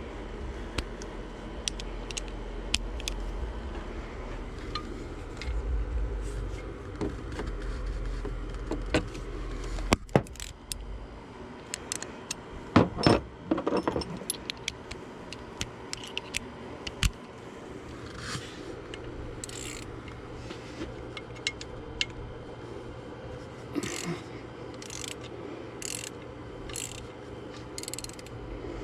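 Hand tools being worked on metal engine-bay hardware: scattered metallic clicks and clinks, a few louder knocks about halfway through, then a ratchet wrench worked in short strokes about once a second near the end, as the bracket over the thermostat housing is unbolted.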